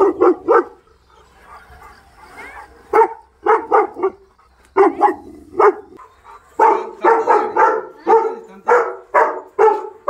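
A Labrador barking in quick runs of short barks: a few at the start and in the middle, then a steady run of about three barks a second over the last few seconds as it faces a cow.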